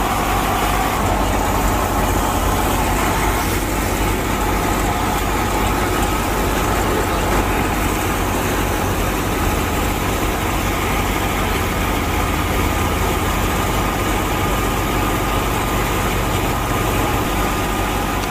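A motor engine running steadily at idle: an even, unchanging low drone.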